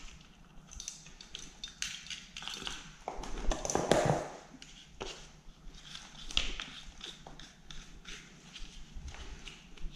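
Caked sawdust being scraped and picked out of a chainsaw's plastic chain cover with a small tool: a run of scratchy scrapes and light clicks of plastic and debris, with a louder stretch of handling about three to four seconds in.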